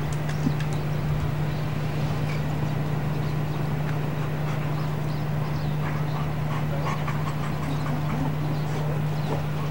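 A steady low hum under a constant hiss, with a few faint soft clicks in the last few seconds.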